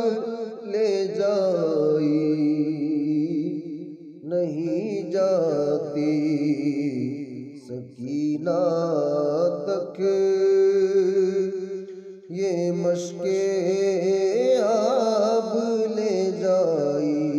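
A man singing a manqabat, a devotional Urdu poem, in long held notes that waver and slide. The phrases break off about every four seconds.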